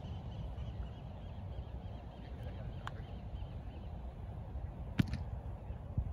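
Low, steady rumble of wind on the microphone, with a faint click near three seconds in, a sharp knock about five seconds in, and a smaller one a second later.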